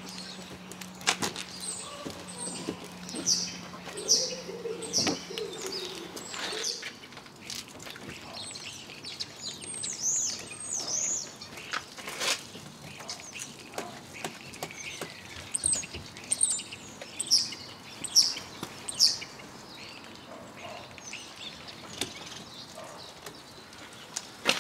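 Microfibre wash mitt scrubbing over a car's soapy, wet paintwork, with birds chirping in short repeated bursts in the background.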